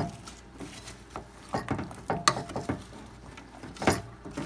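Spice jar of poultry seasoning being shaken and tapped over a pan: a series of irregular sharp clicks and taps.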